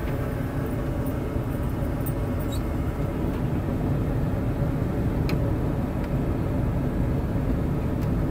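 Ford 300 inline-six engine running steadily, heard from inside the cab as a low rumble, with a few faint clicks.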